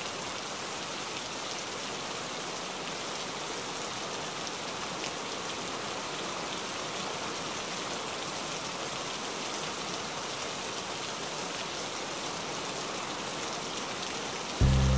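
Steady rain, an even hiss of falling drops. Guitar music starts near the end.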